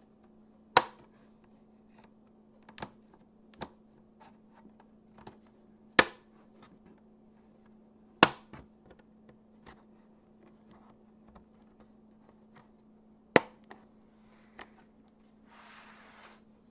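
Sharp plastic clicks and snaps of a laptop's bottom cover being pried loose from its clips: four loud snaps several seconds apart, with quieter taps between, and a brief scraping rustle near the end.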